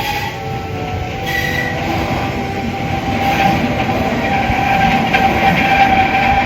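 Keihan 800 series train running past, its wheels squealing with a steady high tone over the running noise. The noise grows louder as it comes near.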